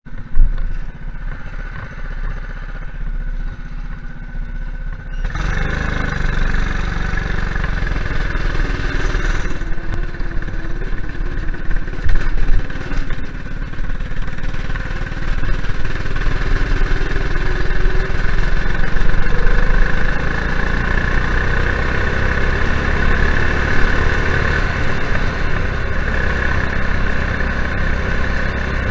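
Go kart engine, a former dirt-track racing kart engine, running quietly for about five seconds and then much louder as the kart pulls away. It keeps running hard at speed with small rises and dips in revs.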